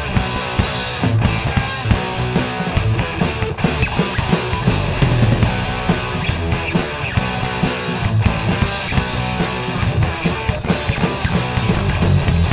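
A rock/metal band playing an instrumental passage with guitars, bass and a drum kit, the drums striking steadily and often, with no vocals.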